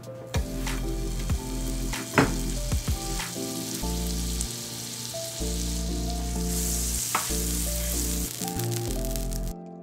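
Vegan butter sizzling as it melts on a hot nonstick griddle. The sizzle grows louder in the second half, with a few sharp clicks, the loudest about two seconds in.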